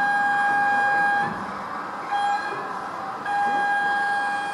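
Gauge 1 model train's electronic sound-module horn sounding: a long blast that stops about a second in, a short toot a second later, then another long blast starting about three seconds in, over the steady hiss of the exhibition hall.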